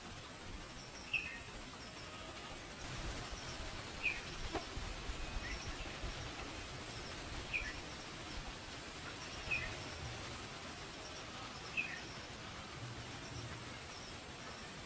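A bird giving a single short, high chirp every two to three seconds, over faint outdoor background noise.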